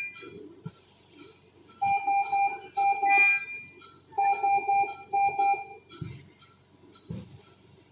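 Electronic medical monitor beeping: short high beeps about two and a half times a second, with a louder, pulsing alarm tone sounding in two stretches of about a second and a half, the first about two seconds in and the second just after four seconds in.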